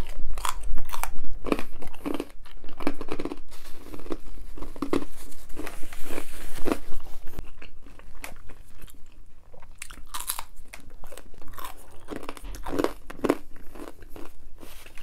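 Close-up chewing and crunching of crisp gluten-free pizza crust, picked up by a clip-on microphone on the eater's shirt. The bites and crunches come thick and loud in the first half and thin out to quieter chewing later.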